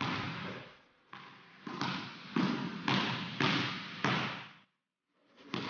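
A basketball being dribbled on a hardwood gym floor, about two bounces a second, each bounce echoing in the hall. The bouncing stops abruptly about three-quarters of the way in, with one more bounce near the end.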